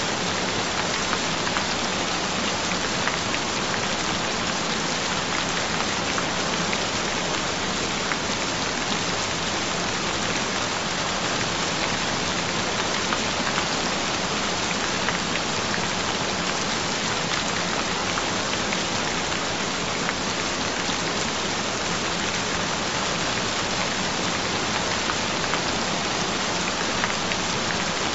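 Steady rain falling, a dense, even patter with no let-up.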